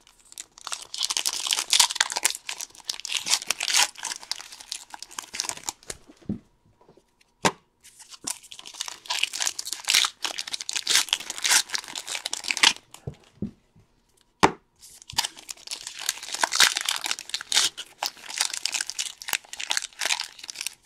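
Foil wrappers of trading-card packs being torn open and crinkled in the hands, in three long bursts with a few sharp clicks in the short pauses between them.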